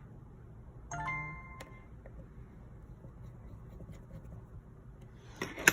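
A short electronic chime of a few steady tones about a second in, then a sharp clack near the end.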